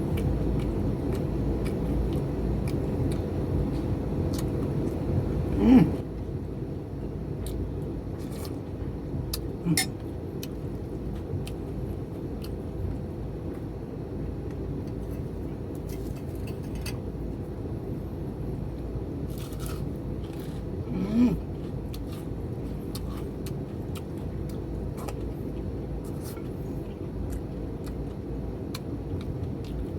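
Eating at a table: scattered light clinks of a spoon against a plate over a steady low rumble, with two brief louder sounds, about six seconds in and again about twenty-one seconds in.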